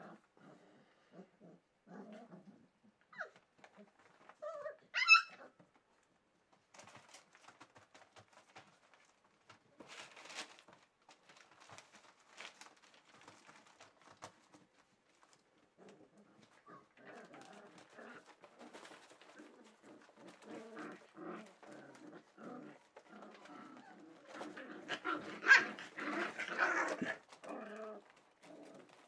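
Four-week-old Welsh Springer Spaniel puppies yelping and whimpering, with one sharp high yelp about five seconds in. A busier stretch of puppy noises fills the last third, loudest near the end.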